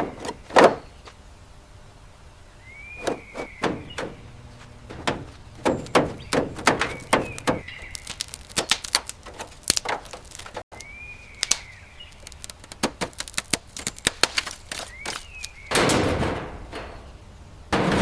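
Irregular knocks and clicks, with a short chirp that rises and falls about every four seconds and a noisy rush lasting about a second near the end.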